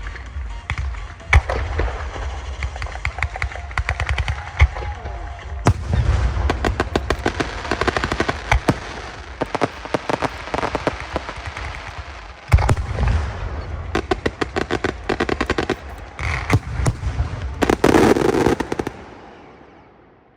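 Aerial fireworks display: rapid volleys of bangs and crackles, densest in a heavy crackling finale about 17 seconds in, then dying away near the end.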